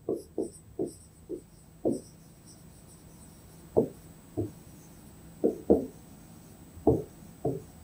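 Pen tip tapping and dragging on the glass screen of an interactive digital whiteboard while handwriting words: a dozen or so short, dull taps in irregular clusters, with a pause of about two seconds in the middle.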